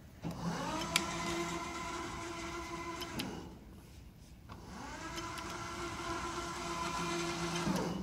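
Electric travel motors of a Vigorun RRB300 remote-control robot base whining as it drives. The whine rises as the machine sets off, holds steady for about three seconds and dies away. After a pause of about a second it rises, holds and dies away again.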